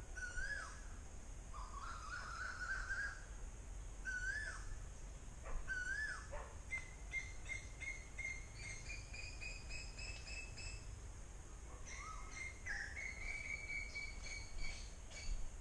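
Asian koel calling: repeated rising whistled notes, then quicker runs of higher notes that climb step by step. Fainter high chirps from other small birds are heard throughout.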